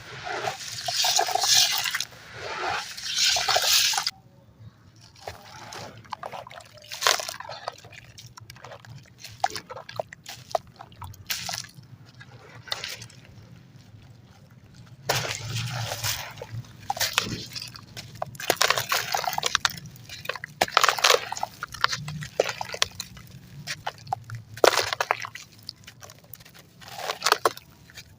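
Wet crumbling: concrete and ash chunks being broken up and squeezed into a watery paste, with crackling, crunching and sloshing. It is dense and loud for the first few seconds, drops to scattered small crackles, then comes back in louder bursts about halfway through.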